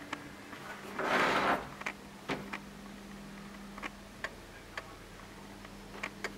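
Handling noise from a handheld camera: scattered light clicks and taps, with a brief loud rustle about a second in, over a low steady hum.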